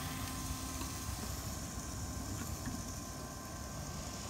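Electric Power Grill's built-in fan running with a steady whir, a low hum and a faint high whine, drawing the steam off the cooking food under the lid.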